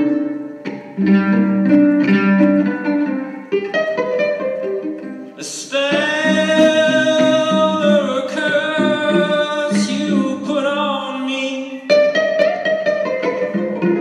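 A man singing a song live over plucked string accompaniment, with a long held, wavering vocal line in the middle of the passage.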